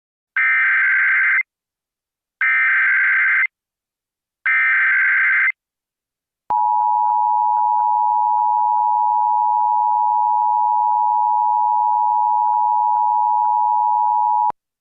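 Emergency Alert System activation: three one-second bursts of the SAME digital header, then the steady two-tone EAS attention signal held for about eight seconds.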